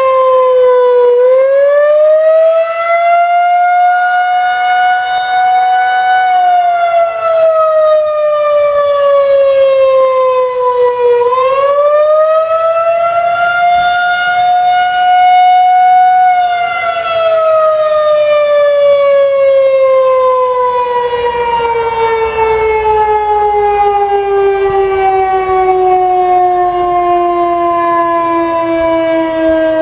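Federal Signal 2001-130 rotating outdoor warning siren wailing: its single tone rises and falls twice, each swing about ten seconds, then glides steadily down and keeps falling as the siren winds down.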